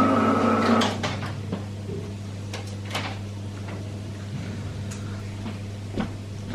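A loud, noisy mechanical sound with a faint held tone cuts off about a second in, followed by a few sharp clicks and knocks of household items being handled, over a steady low hum.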